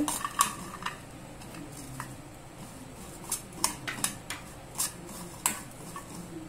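Metal spoon stirring roasting peanuts and dry coconut powder in a stainless steel kadai, giving irregular clinks and scrapes of spoon on pan, about a dozen spread through.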